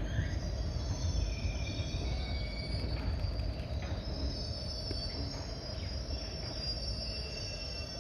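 Passenger train coaches rolling slowly past: a steady low rumble of wheels on the rails, with thin high-pitched wheel squeal over it.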